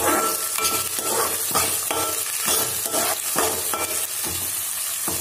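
Sliced onions and green chillies sizzling in hot oil in a metal kadai while a spoon stirs them, scraping against the pan about twice a second.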